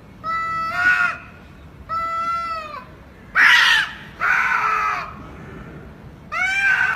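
An animal calling repeatedly: five short, pitched calls, each under a second, rising and falling in pitch.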